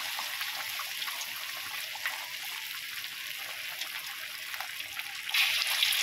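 Battered chicken pieces deep-frying in hot oil in a wok: a steady crackling sizzle with small pops. It swells louder near the end as another raw piece goes into the oil.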